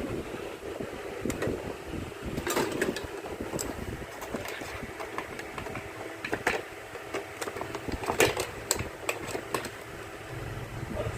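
Irregular clicks, knocks and rustles of an object being handled, over a steady low rumble.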